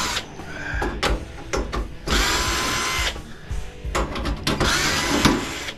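Cordless drill-driver backing screws out of a water cooler's sheet-metal frame. The motor runs in two main bursts of about a second each, its whine rising as it spins up, with short clicks and rattles between.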